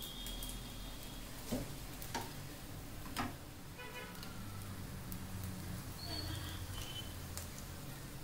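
Egg-dipped bread slice frying in ghee in a frying pan, a faint steady sizzle, with three sharp clicks about one and a half, two and three seconds in, the last the loudest.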